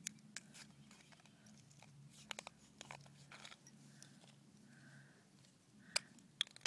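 Knife cutting into a shotgun shell's hull near its base: faint, irregular crunching and scraping clicks, with a couple of sharper ticks near the end.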